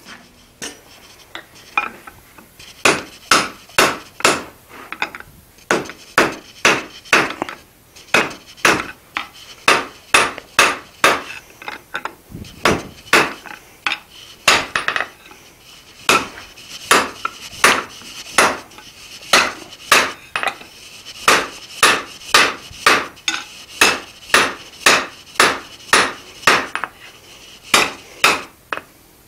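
Hand hammer striking red-hot mild steel bar on an anvil, forging it out: sharp ringing blows at about two a second, starting a couple of seconds in, with brief pauses between runs.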